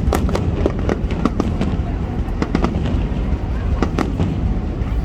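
Large fireworks display going off in rapid succession: many sharp bangs and crackles close together over a continuous low rumble.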